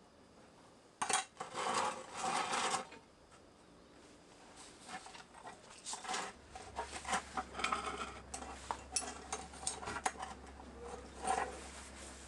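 Scratching, scraping and small sharp clicks of soil being worked into a small bonsai pot around a freshly repotted maple's roots, in irregular bursts. A faint steady low hum sits underneath from about halfway through.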